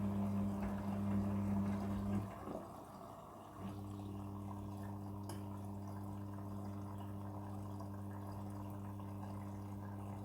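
Midea front-loading washing machine in its prewash, with a steady electrical hum and water running. The hum cuts out about two seconds in and comes back a second and a half later, a little quieter.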